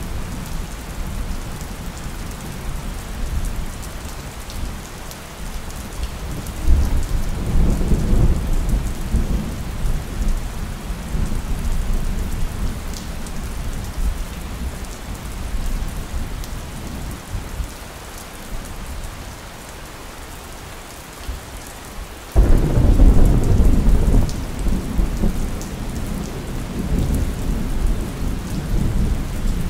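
Steady rain falling, with two rolls of thunder: a rumble that swells about seven seconds in and fades away, then a sudden, louder thunderclap about two-thirds of the way through that rolls on and slowly dies down.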